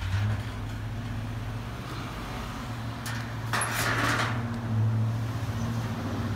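Vehicle engine idling with a steady low hum, and a brief hissing burst a little past halfway.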